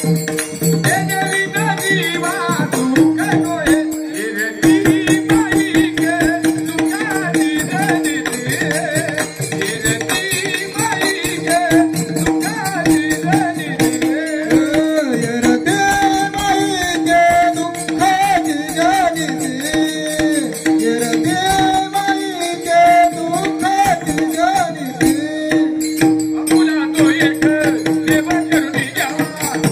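Devotional kirtan singing of an abhang: voices singing over a steady held drone, with hand drum and small cymbals striking a fast, steady rhythm.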